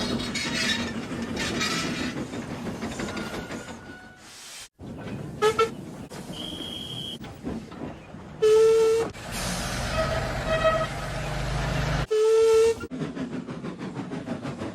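A string of separate steam-locomotive sound effects cut together: puffing and hissing steam, and several short whistle toots. A quick double toot comes about five seconds in, and two louder half-second whistle blasts come later.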